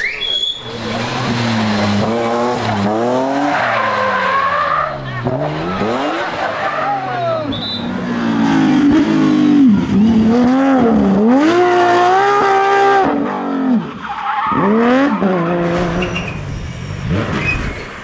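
Rally cars driven hard past the roadside one after another. Each engine revs up, then drops in pitch at every gear change and lift-off, with a Porsche 911 GT3 among them.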